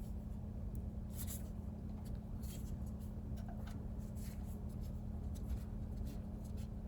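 Faint handling noises, scattered soft clicks and rubbing, over a steady low hum.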